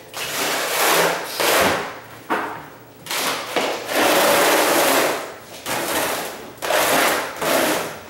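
A loose floor tile scraped along a bare subfloor in repeated rasping strokes, pushing loose debris together into a pile.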